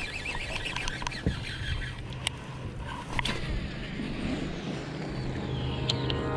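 A steady low motor hum, with a few high chirps in the first second and scattered clicks.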